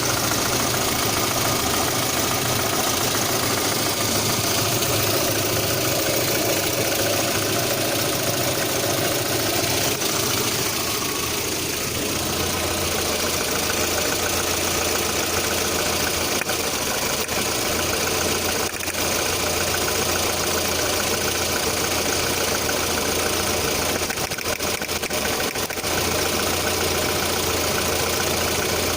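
1.6-litre eight-valve engine idling with a knock at idle, the fault the owner is trying to show. The low engine note changes about twelve seconds in, and a few sharper clicks come in the second half.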